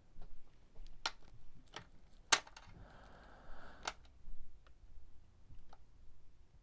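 Bench handling noises during soldering: a few sharp clicks and taps of the soldering iron and circuit board, the loudest a little over two seconds in, with a brief soft hiss about three seconds in.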